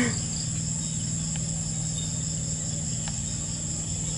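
Steady high-pitched chorus of insects, ringing on two high pitches at once, over a steady low hum.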